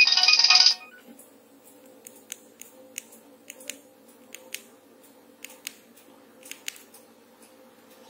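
A Nokia 3105 plays a polyphonic MIDI ringtone preview, which cuts off suddenly less than a second in. A dozen or so soft clicks follow, often in pairs, as the phone's keypad buttons are pressed.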